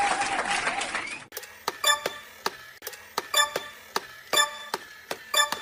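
Background music of sparse plucked, bell-like notes, about two a second, each ringing briefly. It starts suddenly about a second in, cutting off a hissy, cooing voice-like sound.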